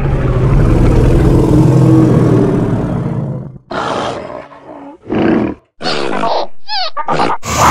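Invented prehistoric-animal calls: one long, low animal roar lasting about three and a half seconds, then a run of short, higher growls and squeals, the last ones falling quickly in pitch.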